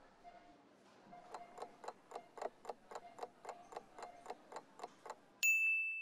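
Countdown timer sound effect: a clock ticking quickly, about four ticks a second, then a single louder bell ding near the end that marks time's up.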